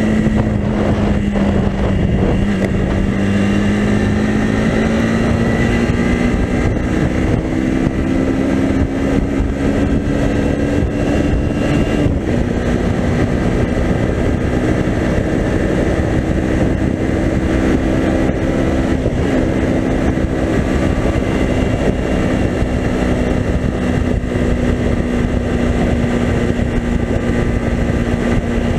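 Kymco Quannon 125's single-cylinder four-stroke engine pulling hard at speed on the road, its pitch rising slowly, dipping briefly about twelve seconds in, then holding steady near full throttle. Heavy wind rush over the microphone throughout.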